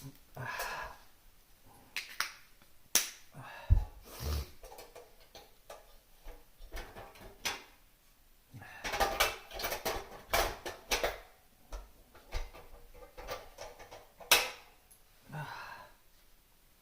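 A person handling and eating a cup of instant ramen: scattered clicks and taps with short rustling, noisy bursts, busiest about nine to eleven seconds in.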